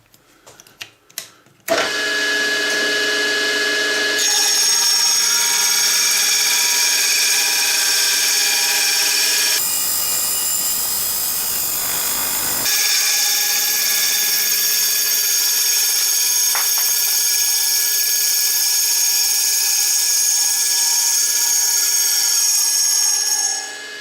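Milling machine spindle driving a carbide-tipped circular saw blade, starting suddenly about two seconds in with a high multi-tone whine while it saws through PA6 polyamide plastic. A rougher, noisier stretch comes in the middle, and the sound stops near the end.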